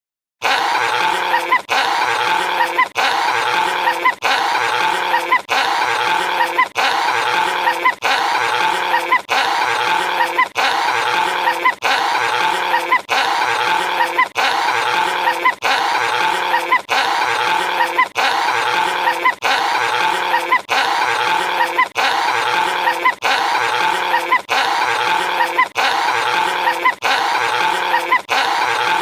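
A short, loud, animal-like sound with steady pitched tones, repeated over and over as an exact loop about every one and a quarter seconds.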